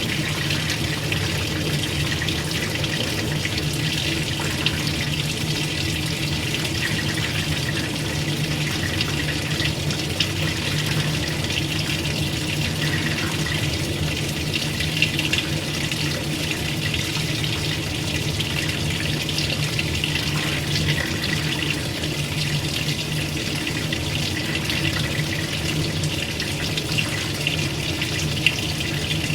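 Water running and splashing steadily in a washing machine, with a steady low hum underneath.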